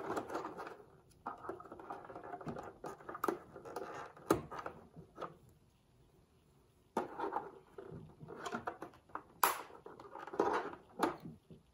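Light plastic clicks, taps and scraping as control knobs are pulled and prised off the plastic front panel of a Hitachi TRK-8300E boombox. There are a few sharper clicks, and a pause of about a second and a half near the middle.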